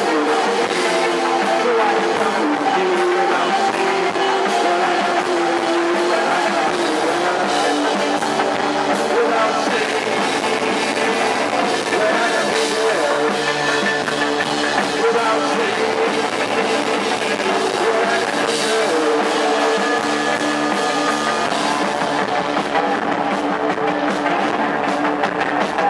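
Post-punk band playing live: guitars and a drum kit at a steady, loud level, with singing.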